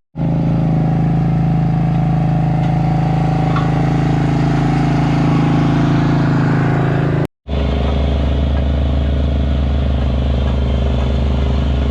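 Ride-on compaction roller's engine running steadily while it rolls the gravel. About seven seconds in there is a cut, after which the engine runs at a lower pitch.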